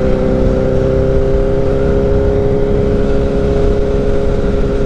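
Honda CBR1000RR inline-four engine running at steady revs while cruising, a constant even hum over a low rumble of wind and road noise.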